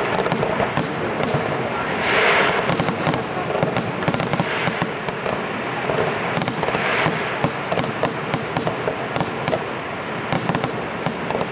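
Fireworks going off: a dense crackle of many sharp pops, with louder bursts about two seconds in and again about seven seconds in.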